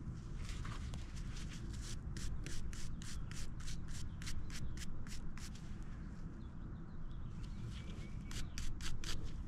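A brush scrubbing dirt off a freshly dug relic in quick strokes, about three a second, in two runs: a long one starting about two seconds in and a shorter one near the end.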